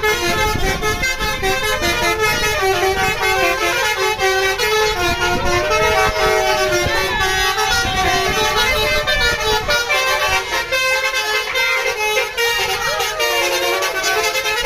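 Bus 'telolet' Basuri musical air horn playing a loud melody of several notes sounding together, stepping from pitch to pitch without a break, with one sliding note about six seconds in.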